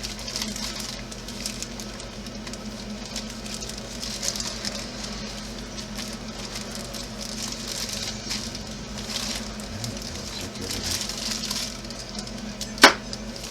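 Plastic parts baggie rustling and crinkling as small parts are dug through by hand, with one sharp click near the end.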